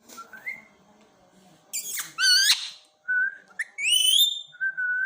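Pet parrot whistling a string of notes: a harsh screech just before two seconds in, a quavering whistle, and steady and rising whistled tones.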